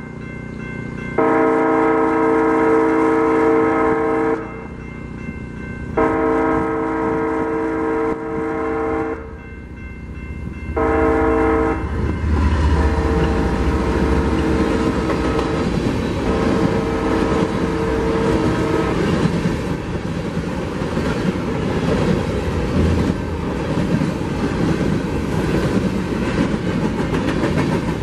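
Diesel locomotive air horn on a BNSF GE ES44C4 sounding the grade-crossing signal: two long blasts, a short one, then a long one that breaks and fades as the engines go by. The locomotives' heavy rumble passes about 12 seconds in, followed by the steady rolling clatter of grain hopper cars.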